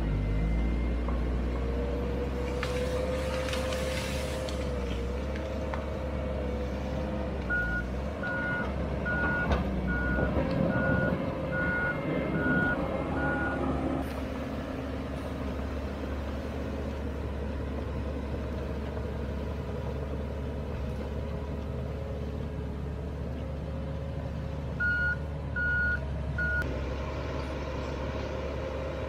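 Komatsu D31EX crawler dozer's diesel engine running as it works. Its backup alarm beeps steadily for about six seconds partway through, then three more times near the end.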